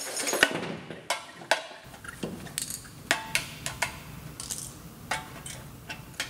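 Pliers tapping a screwdriver against the knockouts of a sheet-metal electrical meter base box, punching them out: a quick, irregular run of sharp metallic clicks and clinks.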